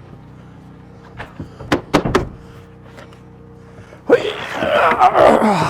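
A few sharp knocks about two seconds in, then a loud scraping, rushing noise from about four seconds in, over a steady low hum.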